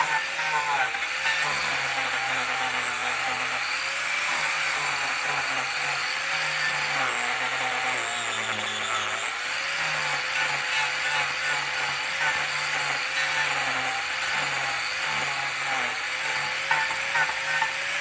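Angle grinder fitted with a King Arthur's carving disc grinding into a bishop wood root, a steady rasping whir whose pitch wavers as the disc is pressed into the wood.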